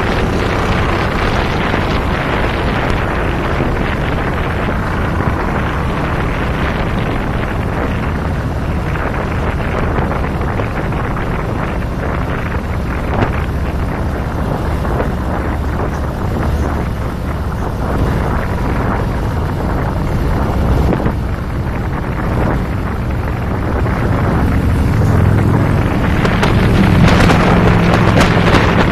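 Cruiser motorcycle engine running at road speed, heard from the handlebars under heavy wind buffeting on the microphone; the engine note gets louder near the end.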